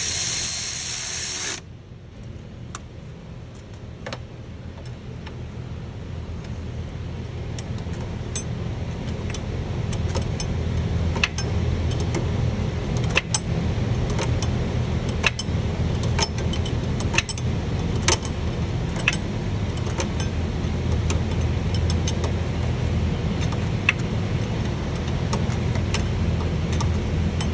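Cordless ratchet running for about a second and a half as it turns a high-pressure fuel line fitting on a DD-series diesel engine. Then a low steady hum that slowly grows louder, with scattered light clicks and taps of hand work on the fittings.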